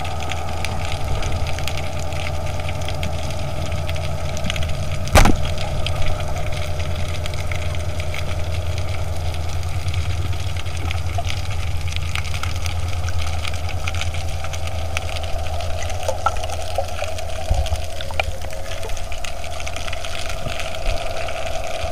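Heard underwater: a steady low motor hum with a thin whine over it, and one sharp crack about five seconds in as a speargun is fired.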